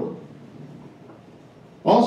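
Faint room tone between sentences of a man speaking over a microphone. His voice trails off at the start and comes back just before the end.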